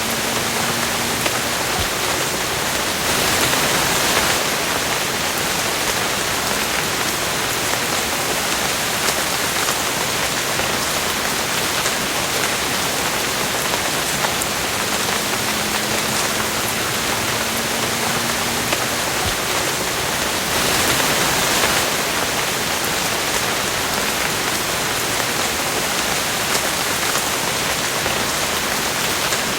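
Steady rain falling on a surface, with scattered sharp drop ticks; it swells briefly louder twice, a few seconds in and again about two-thirds of the way through.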